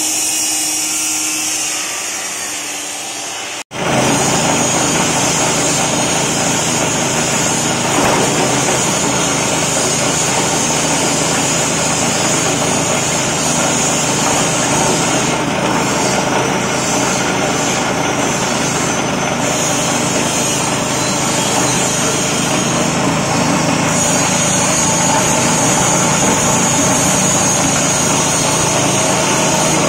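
Straw and coconut-husk chopping machine running steadily with a loud, even mechanical noise. It cuts out for an instant a little under four seconds in, then comes back louder and holds steady.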